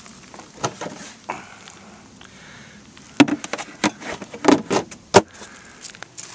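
Sharp clicks and knocks of a plastic cool box lid being handled: a few scattered ones early, then a quick cluster between about three and five seconds in.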